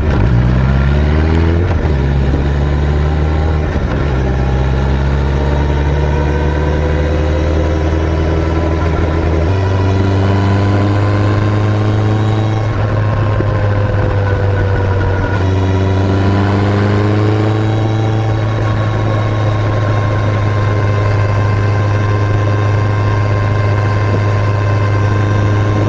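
Suzuki Hayabusa GSX-1300R inline-four motorcycle engine running under way. The note climbs slowly and shifts abruptly in pitch a few times.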